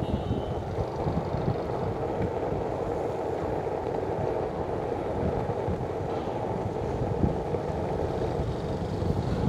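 Steady low rumbling noise, vehicle-like, with one brief knock about seven seconds in.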